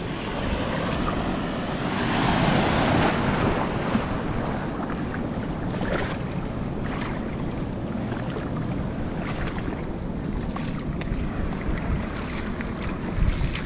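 Small waves washing over shallows thick with sargassum seaweed, with wind buffeting the microphone. The wash swells about two seconds in, and there is a brief louder bump of wind near the end.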